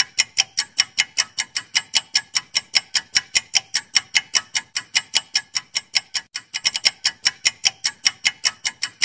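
Clock-ticking sound effect counting down a quiz timer: fast, even ticks, about five a second, with a brief irregular flurry about seven seconds in.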